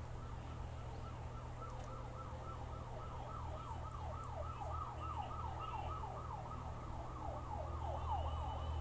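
A siren yelping: a quick, even train of falling whoops, about three a second, fainter at first and growing stronger from about three seconds in.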